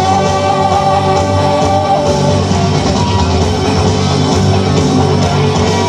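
Amplified pop-rock song with guitar, played loud and continuous, with a girl's voice singing live into a handheld microphone over it in the first couple of seconds.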